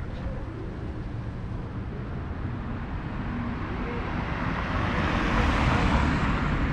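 Street traffic noise: a motor vehicle passing, its tyre and engine noise swelling over the second half, over a low rumble of wind on the microphone.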